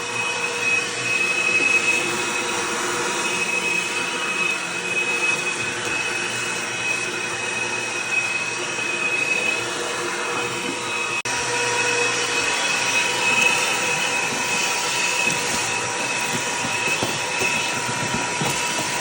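A loud, steady motor running with rushing air and a constant whine. It starts and stops abruptly, with a brief dip about eleven seconds in.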